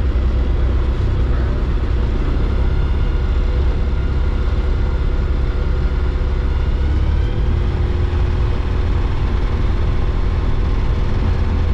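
Direct Fly Alto 100 light sport airplane's engine and propeller running steadily at low taxi power, heard from inside the cockpit as an even, low rumble.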